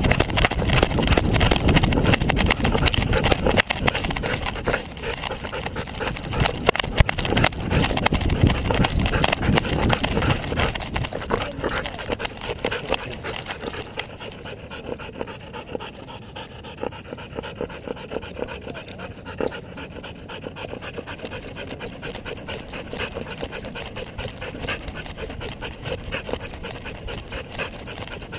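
A dog panting close to a camera strapped to it, with rubbing and jostling noise from the mount as it moves. Louder and rougher for about the first ten seconds, then quieter.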